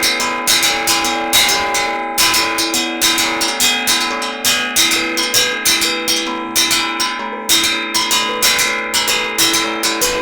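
Music on a plucked string instrument: quick picked notes, about three a second, each ringing on over the next.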